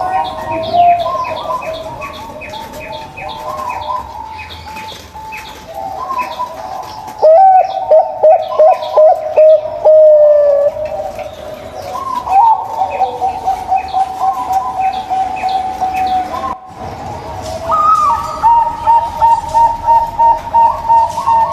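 Zebra doves (perkutut) cooing: overlapping runs of short, fluty notes, with a loud burst of quick staccato notes about seven seconds in and a fast run of repeated notes near the end. Thin, higher chirps sound over the first few seconds.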